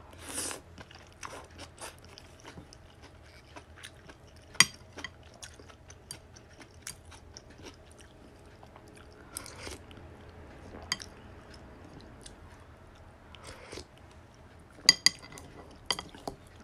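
Close-up chewing of a mouthful of rice noodles and greens, with small wet mouth clicks and crunches, starting with a short slurp as the noodles go in. Near the end, a few quick clinks of chopsticks against a bowl.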